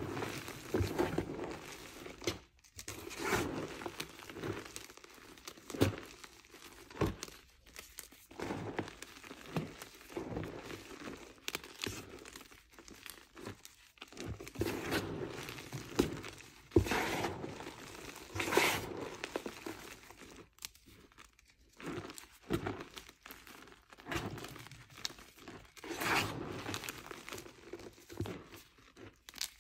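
Crumbled plain gym chalk mixed with cornstarch being squeezed and pressed by hand, giving uneven squeaky crunches. A couple of sharper, louder crunches come a little past the middle.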